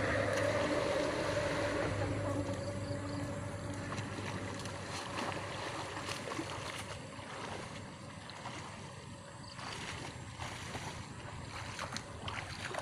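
Water sloshing and splashing as people wade and swim through a shallow, muddy river. A steady hum is heard over the first few seconds and then fades out.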